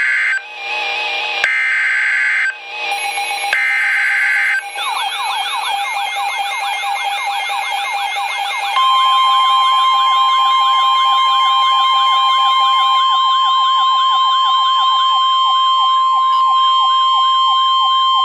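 NOAA Weather Radio alert signals: three short bursts of warbling SAME header data tones, then a siren of about three falling sweeps a second. About nine seconds in, the steady 1050 Hz weather radio warning alarm tone joins the siren and holds under it to the end.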